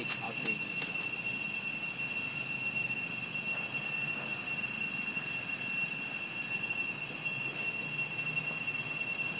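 Steady high-pitched drone of an insect chorus, unbroken and even.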